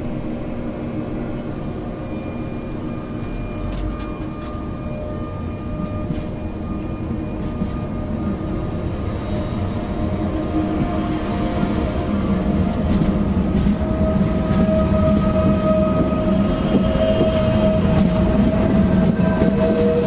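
Metro train running on rails, a steady rumble with a held humming whine, growing gradually louder.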